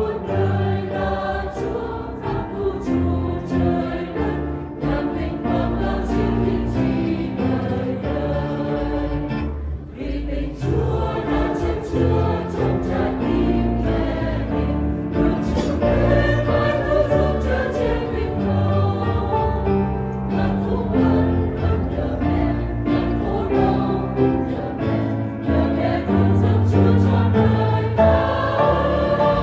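Mixed choir of men's and women's voices singing a Vietnamese hymn in parts, accompanied by acoustic guitar, with a short breath between phrases about ten seconds in.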